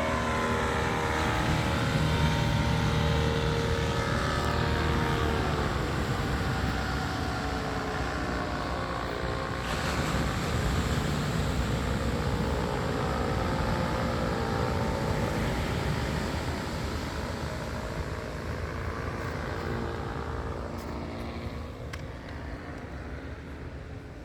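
Motor vehicles driving past, an engine hum whose pitch falls as each passes, twice, over a steady low rumble that fades a little toward the end.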